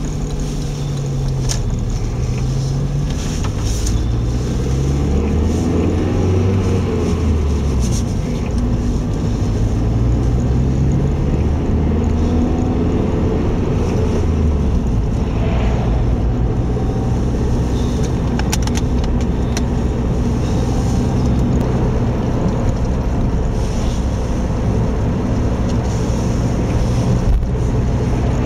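Car engine and road noise heard from inside the cabin while driving. The engine note rises and falls several times through gear changes in the first half, then holds steady at cruising speed.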